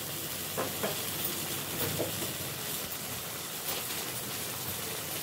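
Chicken curry sizzling steadily in a clay pot on the stove, with a few faint taps.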